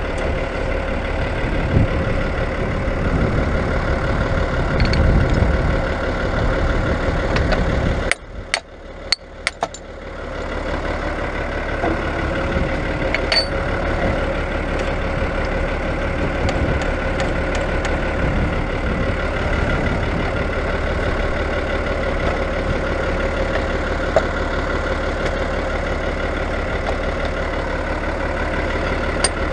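Diesel tractor engine idling steadily close by. About eight seconds in it drops away briefly, with a few sharp metallic clicks, then comes back to a steady idle.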